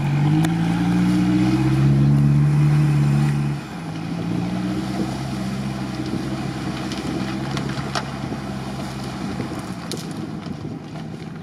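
Toyota Land Cruiser 70's engine revving hard under load as it drives into deep mud, its pitch climbing over the first two seconds. The sound drops suddenly about three and a half seconds in, then the engine runs on quieter and steadier as it pulls away through the ruts.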